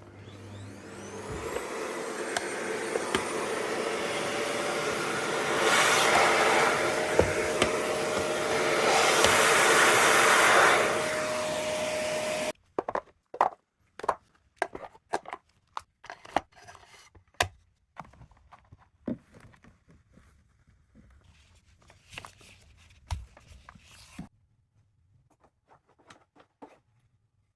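Paper-bag vacuum cleaner motor spinning up with a rising whine, then running steadily, louder in two stretches, before cutting off suddenly about halfway through. Then a scatter of sharp clicks and knocks.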